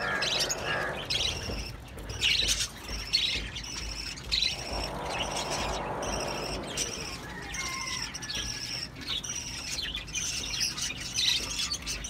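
Ringneck parakeets squawking and chirping in quick, repeated short calls, disturbed as a gloved hand reaches into their clay nest pot. A spell of rustling near the middle comes from the glove working inside the pot.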